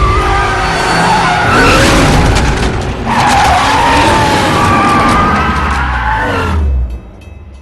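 Car tyres squealing through hard skids, a wavering screech in two long stretches over engine and road noise, cutting off sharply about seven seconds in.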